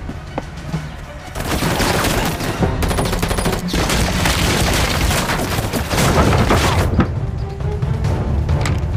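Film soundtrack: a dramatic music score with a loud, dense crackling sound effect laid over it from about a second and a half in until about seven seconds, including a fast run of sharp clicks near the middle.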